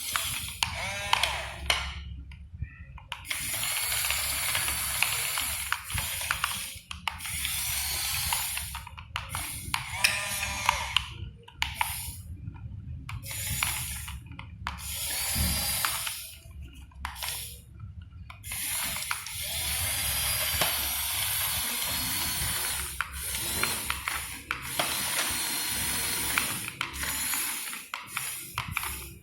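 Radio-controlled model excavator's small electric motors whirring in repeated runs with brief stops between, as its machinery is worked in short moves.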